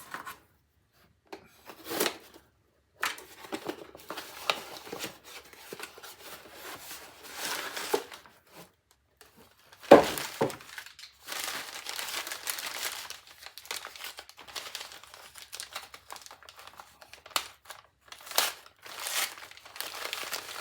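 Crinkling and rustling of packaging being handled, with scattered small clicks and one sharp knock about ten seconds in.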